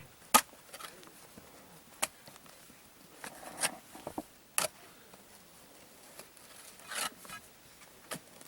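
Sharp, irregular knocks and clinks of hand tools striking and prying at slate as it is quarried.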